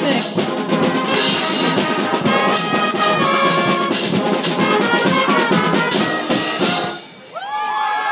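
School pep band of trombones, trumpets and sousaphone playing a tune over drums and crash cymbals with a steady beat. The music stops suddenly about seven seconds in, and several voices whoop and cheer just after.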